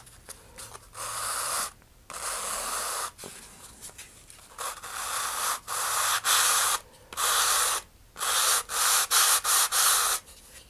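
Sanding block rubbed back and forth along the edge of a sealed balsa-wood fin to flatten it: strokes of sandpaper on wood with short pauses between, roughly a second each at first, then a quicker run of short strokes near the end.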